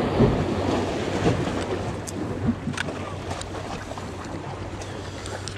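Small waves washing against jetty rocks, with wind buffeting the microphone and a few light clicks about two to three and a half seconds in.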